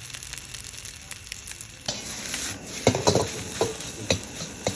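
Char siu fried rice sizzling in a hot pan, with a steady hiss. From about two seconds in, a spatula scrapes and clatters against the pan several times as the rice is stirred and tossed.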